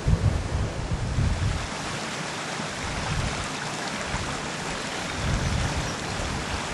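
Rushing water of a small stream tumbling over rocks, a steady hiss, with wind buffeting the microphone in low gusts at the start and again near the end.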